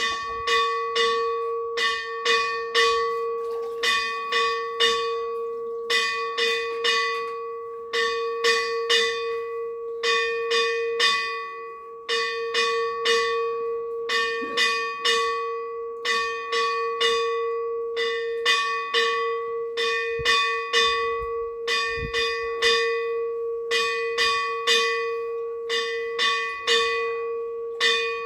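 Temple bell rung rapidly in puja, about three to four strokes a second, its ring sustained as a steady tone beneath the strokes.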